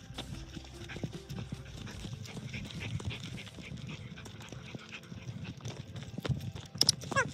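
Footsteps on a dry dirt trail and dogs panting as they walk on leashes. Near the end a brief series of high notes falls quickly in pitch, the loudest sound here.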